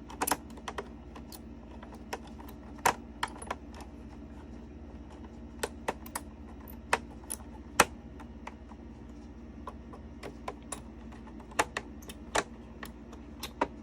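Small screwdriver working a tiny crossfader mounting screw: scattered light clicks and ticks of the driver and screw on the fader's metal bracket, at an irregular pace, over a steady low hum.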